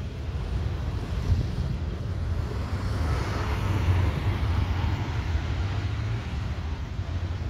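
Boeing 737 MAX 8 approaching head-on, its CFM LEAP-1B turbofans a distant rushing jet noise that swells about halfway through, over a low rumble of wind on the microphone.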